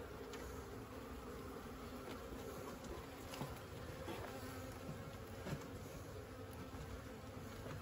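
Steady hum of a honeybee colony buzzing over an open hive and nucleus box as the frames are worked, with a couple of light knocks about halfway through.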